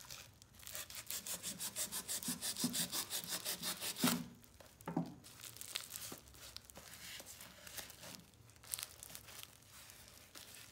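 A long kitchen knife sawing back and forth through a taped plastic parcel wrapping, in quick regular strokes of about six a second for the first few seconds. After that come quieter crinkling and tearing of the plastic with a few small knocks as the wrapping is worked open.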